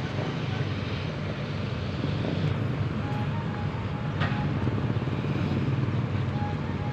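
Jonyang JY623E excavator's diesel engine running steadily.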